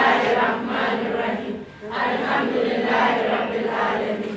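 Large group of schoolchildren chanting together in unison, in phrases of about two seconds with a short break between them.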